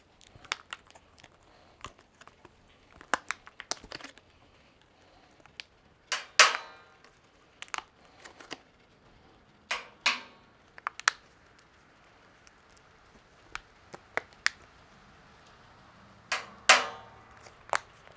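Magnets snapping onto the steel drum of a Pit Barrel smoker to cover its rod holes. Scattered small clicks with light handling rustle, and three louder metallic clanks that ring briefly: about a third of the way in, just past the middle, and near the end.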